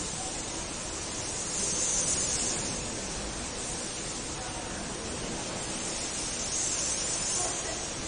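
Steady rushing hiss with no distinct events, swelling slightly about two seconds in and again near the end.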